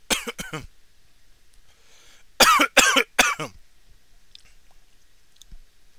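A man coughing from the burn of habanero-spiced candy: a quick run of short coughs at the start, then three loud coughs about two and a half seconds in.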